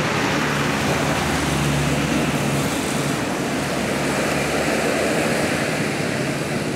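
Large diesel tour bus engine running, a steady low drone over a wash of engine and road noise, easing a little about three seconds in.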